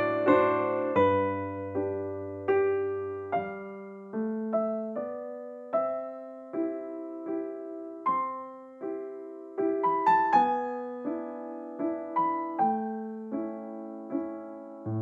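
Background piano music: single notes and chords struck at an easy pace, each note fading before the next.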